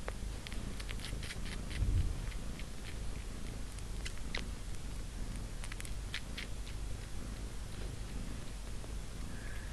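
A mother cat purring steadily, with scattered light clicks over it.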